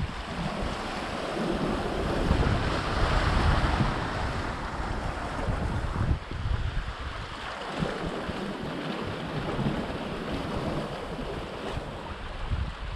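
Sea waves washing against a rocky shore, swelling and easing every few seconds, with wind buffeting the microphone.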